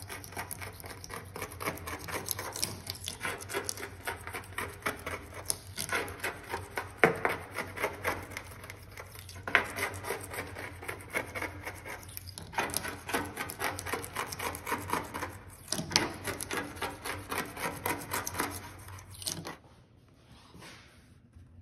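Razor-blade scraper scraping dried beeswax off the stainless-steel side of a wax melter tank, in rapid back-and-forth strokes. The scraping stops about two seconds before the end.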